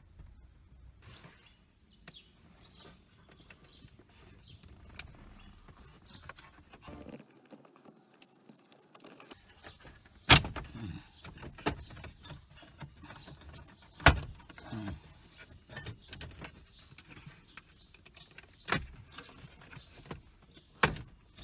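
Hands working on a pickup's dashboard: many light clicks and rattles of plastic trim and tools being handled, with sharp knocks about ten, fourteen, nineteen and twenty-one seconds in, the first two the loudest.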